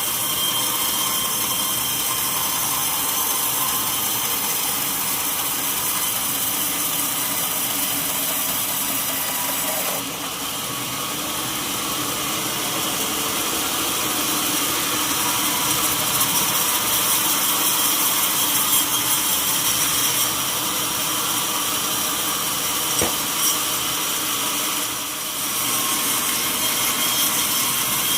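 Sawmill saw running steadily through a solid mahogany log, with a continuous cutting noise that dips slightly twice.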